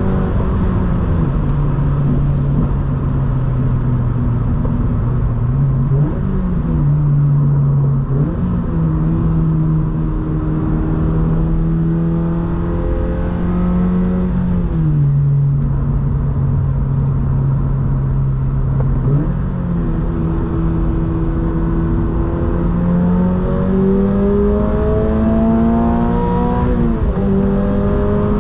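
Toyota GR86's 2.4-litre flat-four with a Borla S-type cat-back exhaust, heard from inside the cabin while driving, over a steady rumble of road noise. The engine note rises and falls several times, with sudden drops in pitch about a second in, around the middle and near the end, and a long steady climb as the car accelerates late on.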